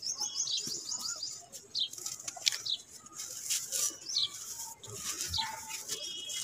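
Lumps of dry red dirt crushed and crumbled by hand, with gritty crunches and crumbs falling into loose dust in a basin. Small birds chirp in the background throughout, with a fast trill at the start.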